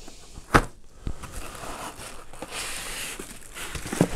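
Cardboard packaging and foam inserts being handled on a desk: a sharp knock about half a second in and another near the end as pieces are set down, with cardboard sliding and rustling between.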